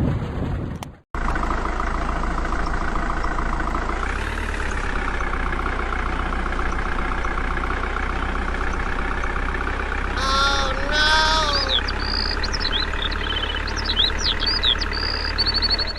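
Vehicle engine running steadily, starting abruptly a second in, with its pitch rising a little about four seconds in. Short bending horn-like tones come about ten seconds in, followed by high chirping whistles near the end.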